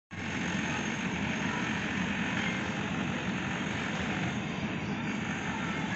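Airport rail link electric multiple-unit train approaching slowly on the track, a steady running noise of motors and wheels with no breaks.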